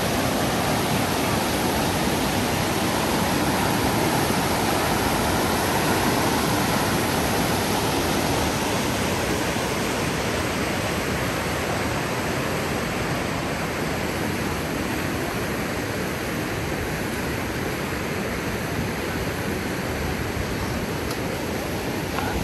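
Floodwater rushing in a steady, continuous torrent, a little stronger in the first few seconds and easing slightly after that.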